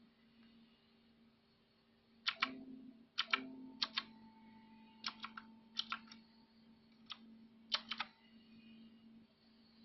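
Clicky blue-switch keys on a mechanical keyboard being pressed in short bursts of one to three clicks, starting about two seconds in and stopping around eight seconds. A faint steady low hum sits underneath.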